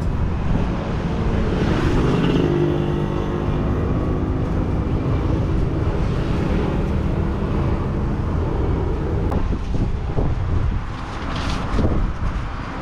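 Road traffic passing close by: a steady low rumble, with one vehicle's engine droning past about two to four seconds in.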